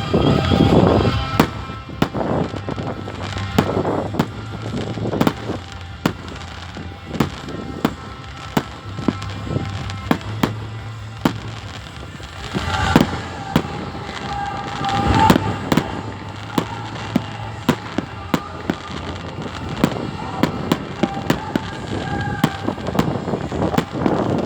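New Year's fireworks and firecrackers going off: a steady run of sharp bangs and crackles, with heavier clusters near the start and around the middle.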